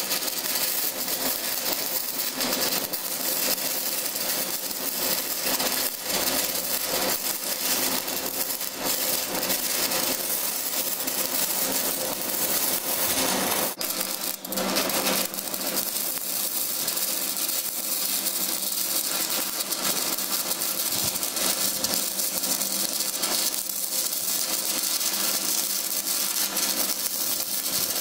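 Stick welding (SMAW) arc crackling steadily as an electrode burns along a steel plate, faltering briefly about halfway through.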